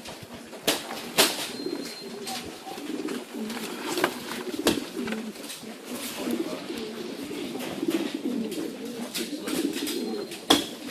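Many racing pigeons cooing together in a steady low chorus, with a few sharp knocks and clicks, the loudest about a second in and another near the end.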